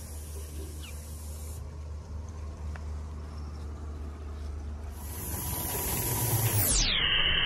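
Live steam model locomotive hissing steam over a low steady hum; the hiss swells and grows louder about five seconds in.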